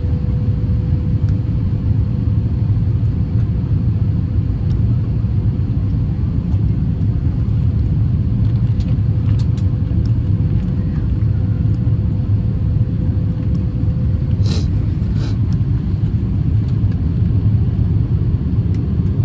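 Steady low rumble of engine and airflow noise heard inside the cabin of an Airbus A350-1000 airliner, with a faint steady whine that stops about three quarters of the way through, followed by two brief clicks.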